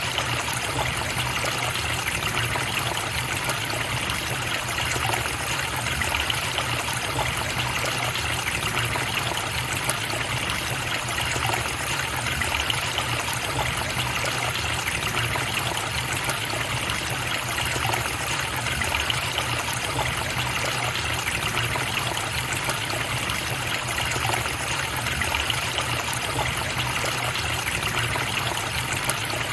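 Stream water running, a steady, unbroken rush without pauses or separate events.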